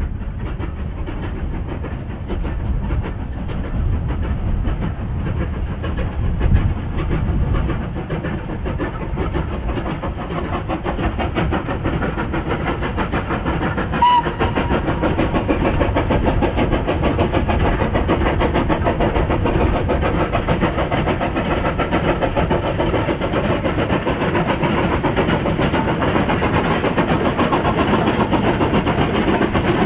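Steam locomotive hauling a freight train, its exhaust beating steadily and growing louder as it approaches. About halfway through, one brief whistle toot.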